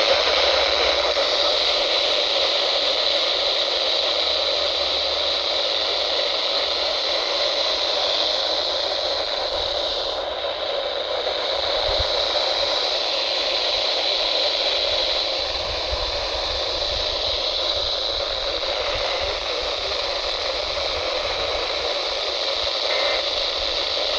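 Weather radio receiver putting out a steady static hiss on a weak or empty channel, with a faint high steady whine in it and no voice.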